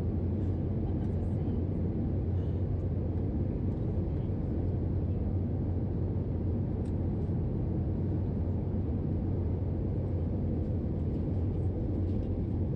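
Steady low drone of an Airbus A321-211 airliner in flight, heard inside the cabin at a window seat beside the wing: engine and airflow noise from its CFM56 turbofans, constant throughout with a deep hum at the bottom.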